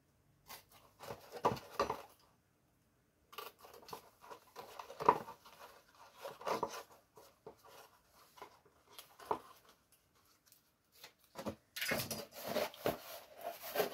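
Cardboard template being folded along its knife-scored bend lines and handled: irregular creasing and rustling in short bursts, with brief pauses between.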